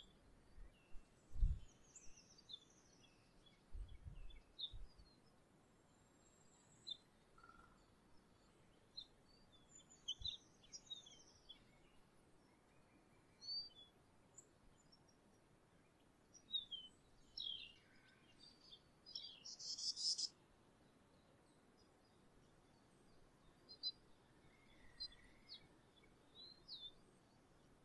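Small songbirds giving short, high chirps and calls, scattered throughout, busiest around two-thirds of the way in. A few soft low thumps fall in the first ten seconds, the loudest about one and a half seconds in.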